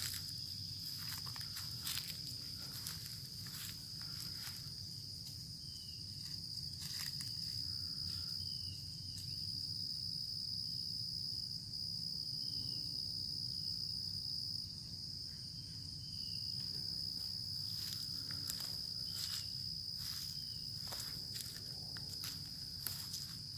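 A steady, high-pitched insect trill runs throughout. Faint short bird chirps come through in the middle stretch, and soft rustles and knocks are scattered mostly near the start and end.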